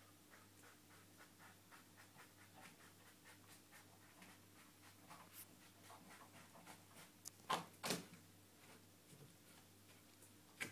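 Faint, quick rustles, about three a second, from a grey cat working close to the phone, then two louder scuffs about eight seconds in as its fur brushes the microphone.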